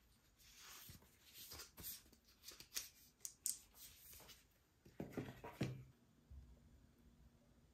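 Paper folder and card rustling and sliding as they are handled, with a few sharp clicks. About five seconds in, a short cluster of soft knocks with a low thud as the aluminium laptop is set down on a desk mat.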